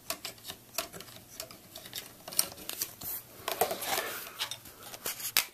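Irregular small clicks and taps of fingers working the film-loading cover off a Sankyo 2000H projector, with a brief scrape in the middle.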